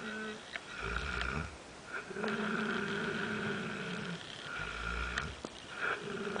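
A sleeping pet snoring in slow breaths. There are two breath cycles, each a short low rumble followed by a longer steady droning tone.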